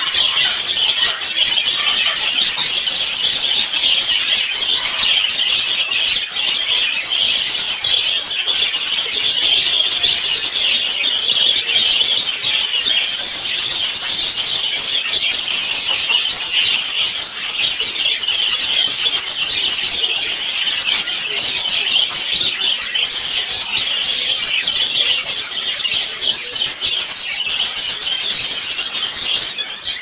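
Many small caged birds chirping and squeaking together in a dense, unbroken, high-pitched chatter.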